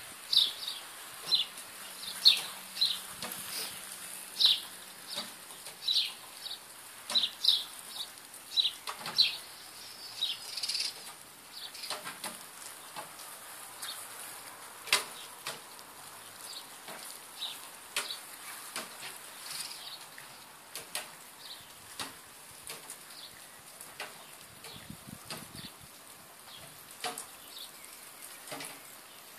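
Small birds chirping in short sharp calls, many in quick succession over the first ten seconds, then fainter and sparser.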